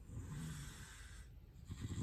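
A sleeper snoring: a soft, airy breath out, then, about one and a half seconds in, a loud, low, rattling snore begins.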